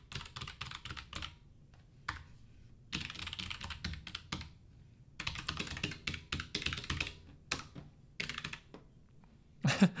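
Keys of a Hexgears X-1 low-profile mechanical keyboard with Kailh PG1350 (Choc) switches being pressed one after another. The presses come in quick runs of several clicks a second, with short pauses between the runs.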